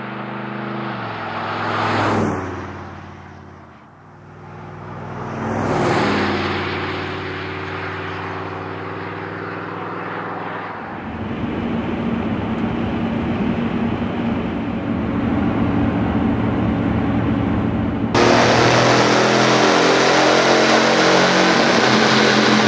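A Chevrolet 1500 pickup's 5.7L V8 with a Flowmaster FlowFX cat-back exhaust driving past twice, the exhaust note rising and then dropping in pitch at each pass. Then the V8's steady drone heard inside the cab cruising at 55 mph on the stock exhaust. About 18 s in it cuts to a louder, brighter steady cab drone.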